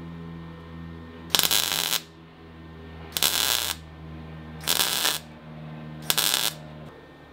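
MIG welder arc crackling in four short bursts of about half a second each, as a steel fender flare seam is tack-welded with a steel welding rod fed into a wide gap as filler. A steady low machine hum runs underneath and stops near the end.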